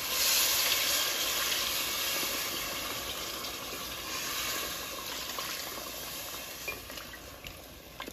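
Water poured into a hot metal pot of frying masala and mutton head meat, hissing and sizzling as it hits, then slowly dying down while a wooden spoon stirs. A few light knocks of the spoon near the end.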